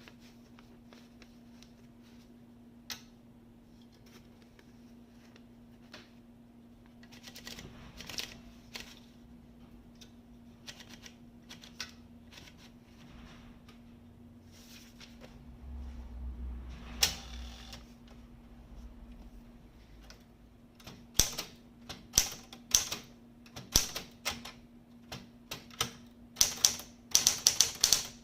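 SCM Sterling 12 manual typewriter: faint scattered clicks and handling noises at first, then a run of typing with sharp key strikes from about two-thirds of the way in, densest and loudest near the end.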